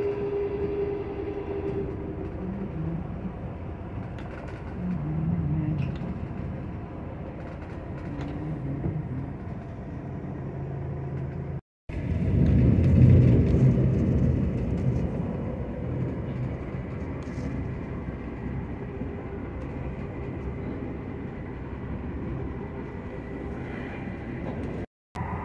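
Boat engine running steadily under a wash of wind and water noise. The sound drops out briefly about twelve seconds in and again near the end.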